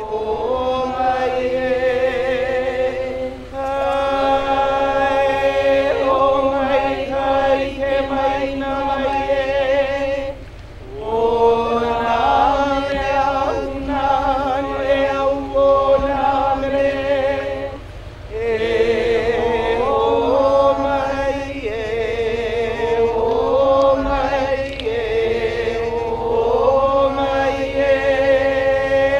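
Hawaiian chant (oli): long, held, sung notes in phrases, with short pauses for breath every several seconds.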